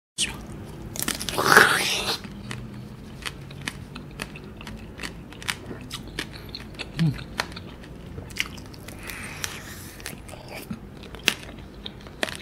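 Biting into a tanghulu mandarin orange: the hard sugar-glass coating cracks loudly about a second and a half in. Close-up chewing follows, with many small, sharp crunches of the candy shell.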